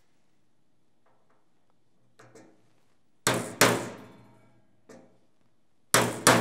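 Small hammer tapping a steel drift punch to drive a pin out of an electric toothbrush's plastic body. Two light taps come first, then two hard strikes close together, another light tap, and two more hard strikes near the end, each ringing briefly.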